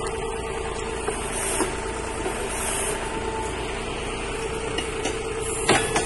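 Tractor diesel engine running steadily while powering a tractor-mounted backhoe digging, with a steady hum over it. A single sharp clank near the end.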